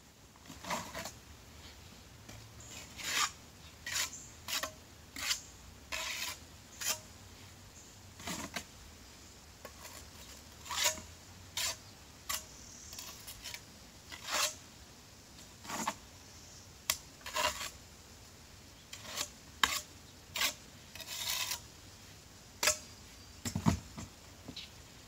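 A steel pointing trowel scraping and scooping mortar in a wheelbarrow: short, irregular scrapes, roughly one a second, with a heavier knock near the end.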